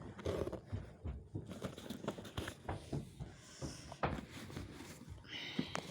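Stitching being unpicked along a bag's zipper: scattered small clicks and short rustling scrapes of thread being cut and pulled and fabric being handled, with a brief scrape near the end.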